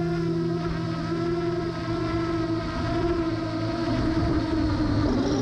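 FPV quadcopter's motors and propellers buzzing steadily in an even, unchanging pitch.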